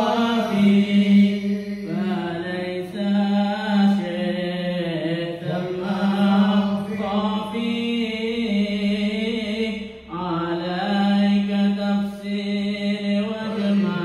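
A man's solo unaccompanied Islamic devotional chanting, sung into a microphone: long held notes with ornamented turns, with a brief pause for breath about ten seconds in.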